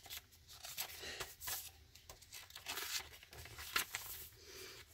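Paper pages of a handmade junk journal rustling as they are handled and turned, in several short swishes.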